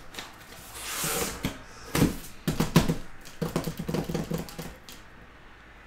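A cardboard shipping case being opened and handled: a rustle of the flaps, then a quick run of knocks and scrapes of cardboard, stopping about five seconds in.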